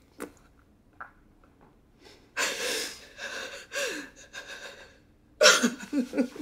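A person sobbing in distress: ragged, gasping breaths broken by short wavering cries, the loudest burst about five and a half seconds in.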